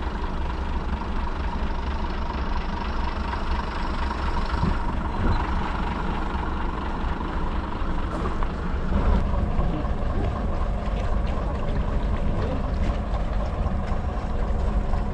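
Heritage diesel multiple unit's engine idling steadily while the train stands at the platform.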